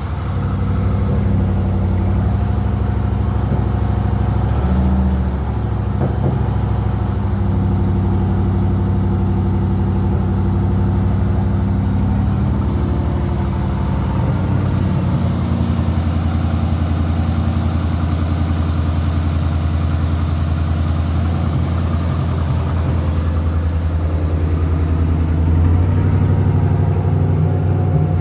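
Pickup truck's 5.3-litre V8 running loudly, its speed shifting up and down a few times, as it is worked to bring out a misfire that has been setting multiple-cylinder and cylinder 2 misfire codes.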